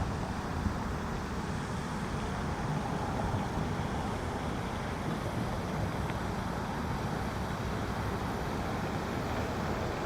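Steady wind noise on the microphone, a low rumbling hiss with gusty swells.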